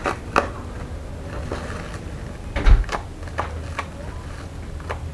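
Plastic hardware bag being cut and torn open with a knife: crinkling plastic and short clicks as the bag and its bolts are handled, with one dull thump about halfway through, over a low steady rumble.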